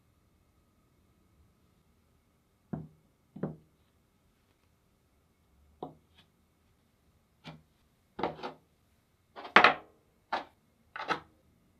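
A series of about ten short, irregularly spaced knocks and clacks of tools or parts being handled on a wooden workbench. They come closer together and louder in the second half, the loudest a little before the end.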